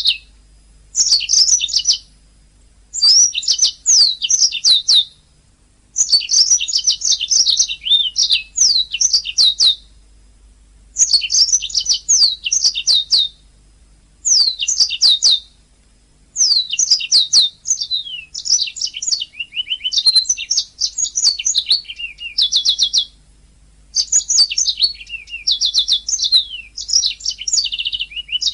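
Domestic canary singing: bursts of rapid chirps and rolling trills, each phrase lasting one to three seconds with short pauses between.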